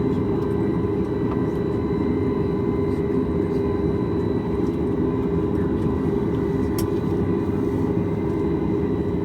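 Steady cabin noise inside a Boeing 737 MAX 8, its CFM LEAP-1B turbofan engines running with an even, constant drone and hum.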